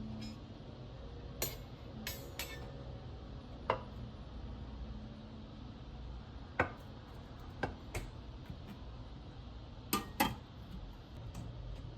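Scattered light clinks and knocks of kitchen utensils and dishes being handled, about nine in all, two close together near the end, over a faint steady low hum.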